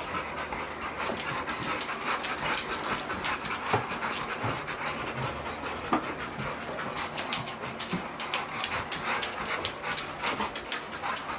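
Several pit bull-type dogs panting hard together in a steady breathy chorus, with many short sharp clicks scattered throughout.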